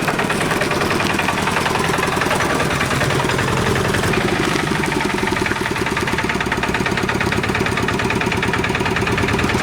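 Auto-rickshaw engine running steadily with a fast, even pulse.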